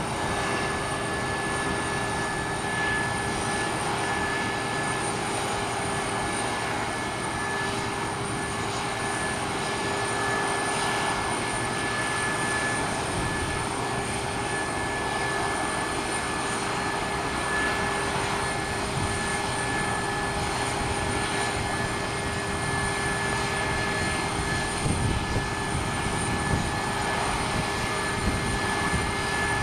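Steady whine and rush of a parked jet airliner's turbine running at the stand, holding an even pitch throughout. A few brief louder low bumps come near the end.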